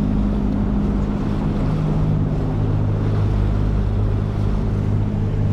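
Outboard motor pushing a Highfield Sport 390 rigid inflatable boat under way, a steady engine note that shifts lower about two seconds in. Wind on the microphone and water rushing along the hull.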